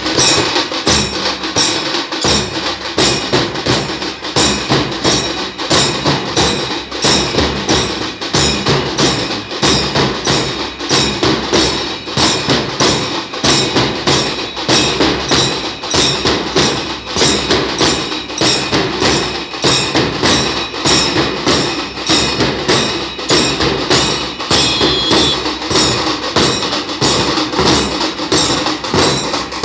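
A band of large double-headed drums beaten with sticks in a fast, steady rhythm, the sharp strokes repeating evenly throughout.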